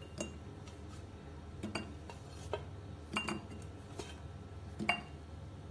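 Small raw tender mangoes dropping into a glass jar, giving about eight short, irregularly spaced clinks against the glass, a few of them ringing briefly.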